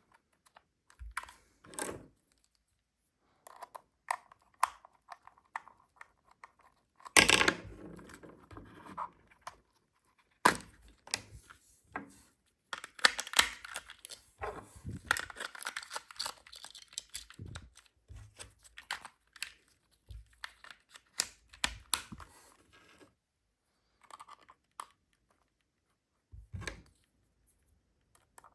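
Unboxing a toy RC car by hand: scattered clicks and knocks of packaging being handled, with a loud tear about seven seconds in and a stretch of crinkling plastic and cardboard in the middle.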